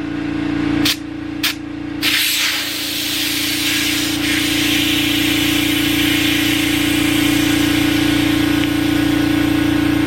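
Air compressor running with a steady hum while compressed air hisses steadily into a motorcycle tire and tube, inflating it to about 50 psi to seat the tire bead. A few sharp clicks come in the first two seconds, just before the hiss starts.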